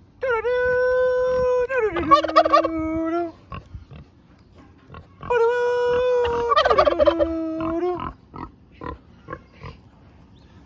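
Domestic tom turkey gobbling twice, a few seconds apart. Each time a long steady pitched note comes before a rapid wavering, rattling call.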